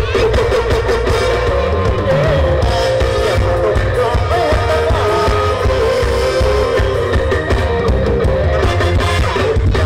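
Live Isan mor lam-style stage band playing loud through a PA system: a heavy bass and drum beat, keyboard and electric guitar, with a singer's voice over the top.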